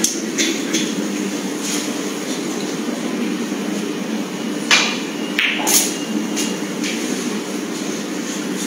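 Snooker cue tip striking the cue ball with a sharp click, followed about a second later by a second click as the cue ball strikes the cushion or another ball, over a steady hum of hall noise.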